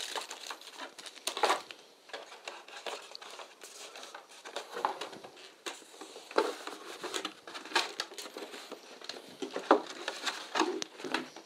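Unpacking handling noise: plastic packaging rustling and crinkling, with short irregular clicks and taps as cables and a molded plastic tray are moved about.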